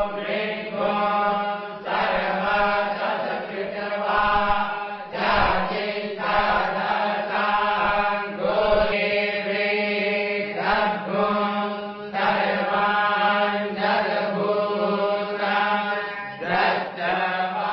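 A group of Vedic students chanting Vedic hymns in unison, holding a steady reciting pitch, phrase after phrase with a few brief breaks.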